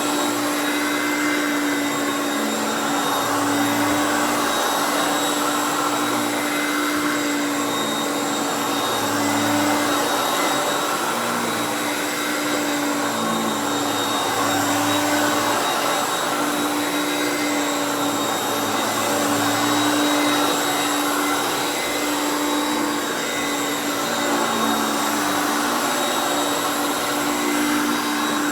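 Hoover Concept One U3101 upright vacuum with its 5.6 amp motor running on high speed: a steady, loud motor hum with a constant tone, the level swelling and sinking slightly every few seconds.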